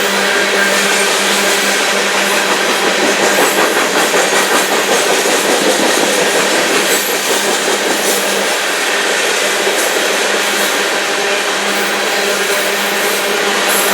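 Union Pacific coal train rolling past at close range: a steady rumble and clatter of the cars on the rails, with a constant low hum underneath and a rougher, pulsing stretch a few seconds in.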